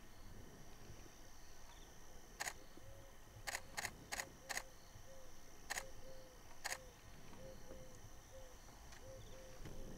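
Camera shutters clicking: seven single clicks spread over a few seconds, four of them in a quick run.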